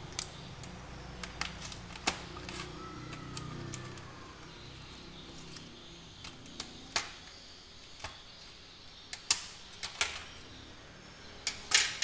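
Plastic clips of a Lenovo ThinkPad X260's bottom cover clicking and popping loose one at a time as a plastic pry tool works around its edge, with a faint scrape of the tool a few seconds in and a quick run of louder snaps near the end as the cover comes free.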